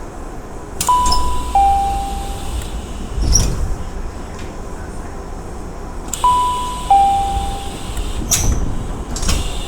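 Tokyu 5000 series train door chime sounding twice, each time a two-note falling ding-dong, over the steady low rumble of the car. A couple of seconds after each chime comes a thud from the sliding doors.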